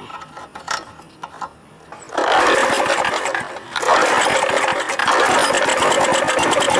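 A few light clicks and knocks, then about two seconds in a petrol lawn mower engine starts and runs. It falters briefly near the middle, then picks up again and runs steadily.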